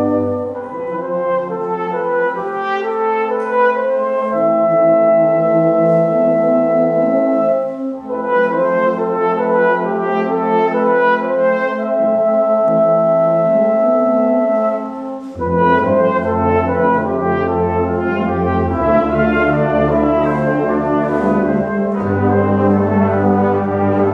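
Brass band of trombones, euphoniums, tubas and higher brass playing slow, sustained chords with long held melody notes. The deep bass parts sit out for the first half and come back in with the full band about two-thirds of the way through.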